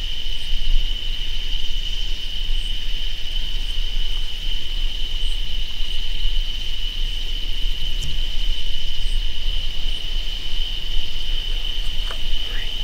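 Chorus of night insects holding one steady, high-pitched trill, with a low rumble underneath.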